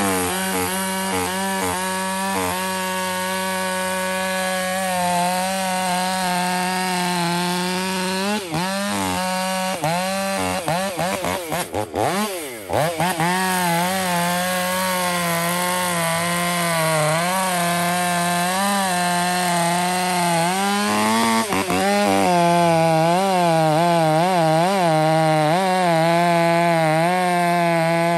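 Stihl chainsaw running at full throttle while cutting through a large conifer log, its engine pitch wavering as the chain loads up and recovers in the wood. About twelve seconds in the engine note briefly dips and then climbs back up.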